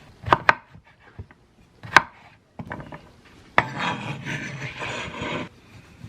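Three sharp clicks or knocks, then about two seconds of scraping, rubbing noise that stops suddenly.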